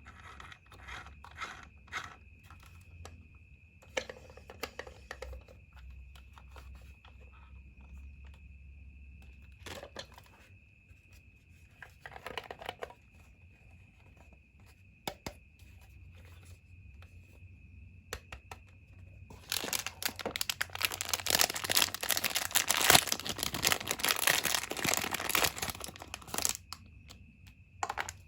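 Packaging being handled: scattered clicks and rustles, then about seven seconds of loud tearing and crinkling of the wrapping, starting about two-thirds of the way through. A faint steady high whine runs underneath.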